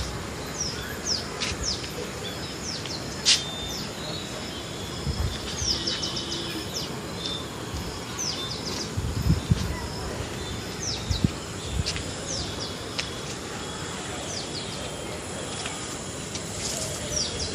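Small birds chattering: many short, high chirps that sweep downward, scattered throughout over a steady background hiss. A few brief low thumps come through along the way.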